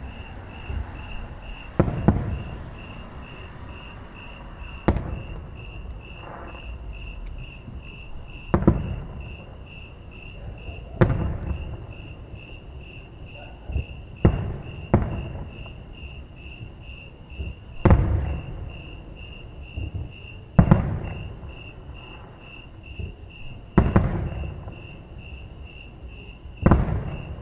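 Aerial firework shells bursting at a distance: about ten booms, each trailing off in a low rumbling echo, a few seconds apart, two of them close together near the middle. Under them runs a steady, high-pitched chirping that pulses a few times a second.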